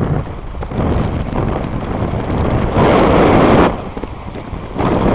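Wind rushing over a helmet-mounted intercom microphone, with a louder gust about three seconds in and another near the end.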